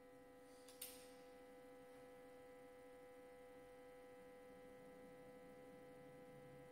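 Near silence: a faint steady electrical hum, with one faint click about a second in.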